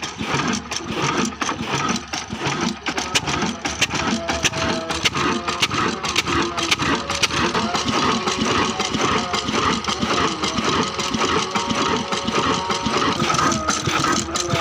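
Old Ruston Hornsby 22 HP stationary diesel engine running, with a steady rhythmic knocking and a dense rapid clatter.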